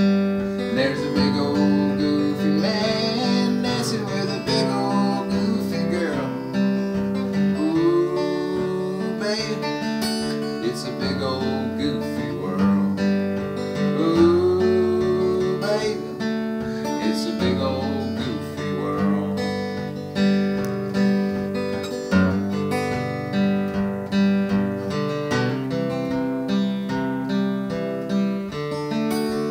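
Solo acoustic guitar strummed and picked, chords mixed with melody notes, playing the instrumental outro of a folk song after the last sung verse.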